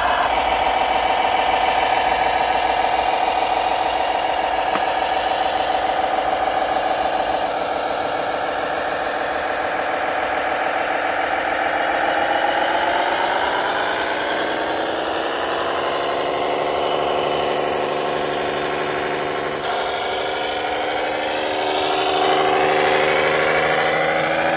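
Radio-controlled model tractor's drive running under load, a steady whine whose pitch climbs about two-thirds of the way through and changes again near the end.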